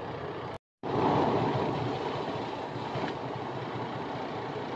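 Steady rumbling, hissing vehicle noise from a semi truck, broken by a brief cut to total silence under a second in.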